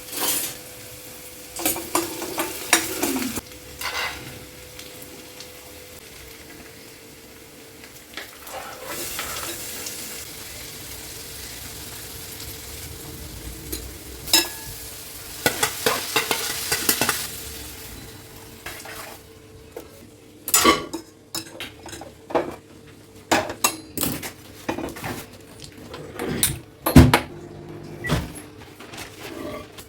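Food sizzling in a pan on the stove, with a metal spoon stirring and clinking against pots and utensils. The clinks are sharp and irregular and come thickest in the last third.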